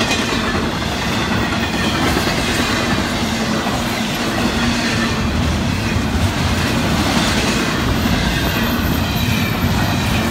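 Double-stack intermodal freight train's container well cars rolling past at close range, steel wheels running steadily on the rails.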